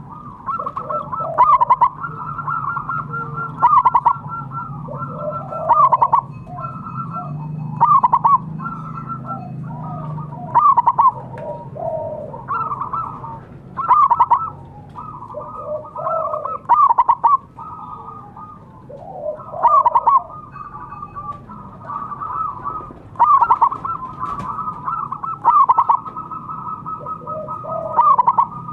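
Zebra dove (perkutut) cooing: repeated phrases of quick, rolling coos, with a louder phrase about every two seconds and softer cooing between. A steady low hum runs underneath.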